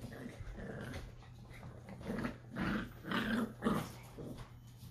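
Dachshund puppies growling as they play-fight, in four short bursts about half a second apart.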